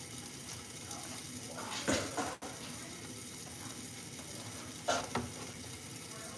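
Chicken frying in a pan, a steady sizzle, with two brief clatters of kitchen utensils about two seconds in and about five seconds in.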